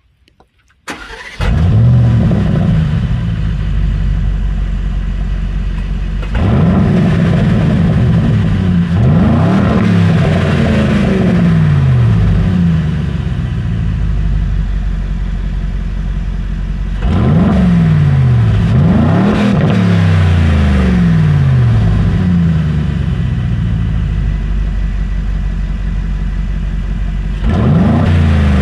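2025 Aston Martin Vantage's 4.0-litre twin-turbocharged V8 at the exhaust, in its standard exhaust setting. It starts up about a second in with a loud flare and then idles. It is blipped through several quick rises and falls in revs in two bursts separated by idle, and starts revving again near the end.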